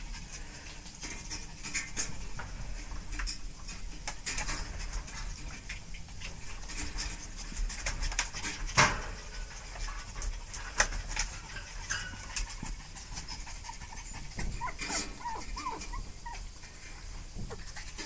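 Chihuahua puppy giving a few short, squeaky whimpers near the end while its belly is rubbed, over scratchy rustling and sharp clicks of a hand on its fur; the loudest click comes about nine seconds in.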